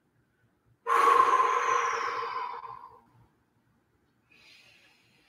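A man's long, loud exhale, a sigh of breath held out for about two seconds and fading away, while holding a deep stretch. A faint short breath follows near the end.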